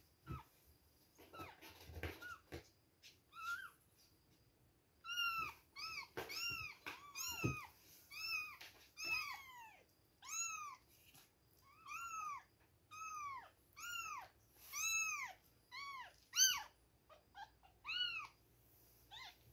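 Two-week-old kittens mewing: short, high-pitched calls that rise and fall in pitch, a few at first, then a rapid string of about one or two a second from about five seconds in.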